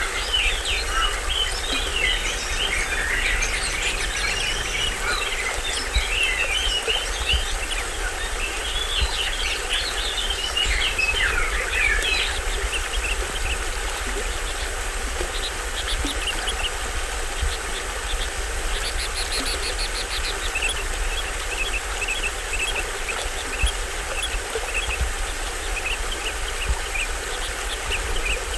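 Steady rush of a small waterfall with a low rumble beneath, and many birds chirping over it: the chirping is busy through the first half and sparser later, with a brief buzzy call about two-thirds of the way in.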